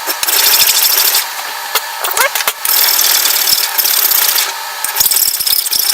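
Metal file rasping across a 1/8 in aluminium flat-stock belt-buckle blank in quick strokes. Three louder forward strokes of about a second each, with quieter scraping between them.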